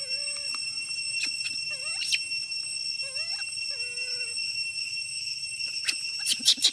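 A baby macaque giving short, wavering cries four or five times, over a steady high chirring of insects. A quick run of sharp clicks comes near the end.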